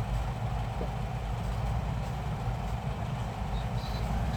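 Steady low rumble of running machinery, unchanging throughout.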